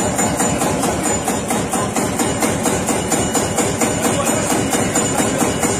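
Lanz Bulldog tractor's single-cylinder two-stroke hot-bulb engine running steadily after its cartridge start, a fast, even knock.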